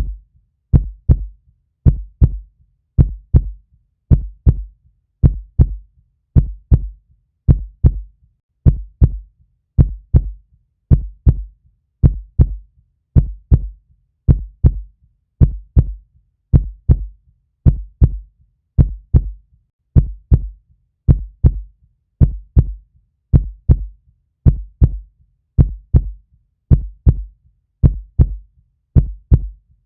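A heartbeat's steady, regular lub-dub: paired low thumps at about one beat a second.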